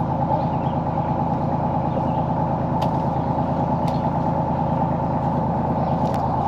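Tractor backhoe's engine running steadily at an even speed, with a few faint clicks over it.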